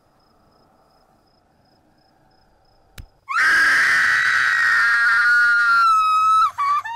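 A woman screaming: one long, loud, high shriek that starts suddenly about three seconds in and breaks up near the end. Before it there is a near-quiet stretch of faint room hum with a single click.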